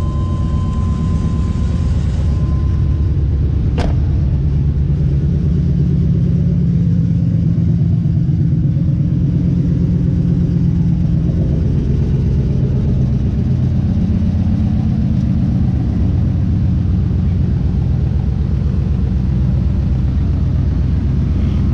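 A car or truck engine running close by, with a steady low rumble. The engine speed rises a little partway through, then settles back. A steady high beep sounds for the first few seconds, and a single sharp click comes about four seconds in.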